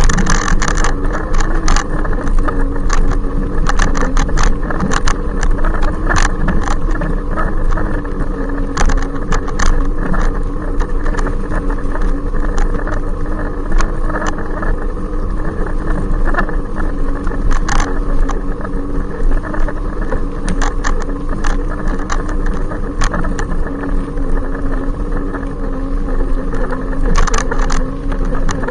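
Loud, steady whine of an e-bike's electric motor under way, over a constant low rumble, with frequent short clicks and rattles.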